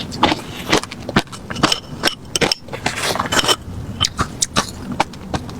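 Refrozen crushed ice being bitten and chewed: an irregular run of sharp crunches and crackles, several a second.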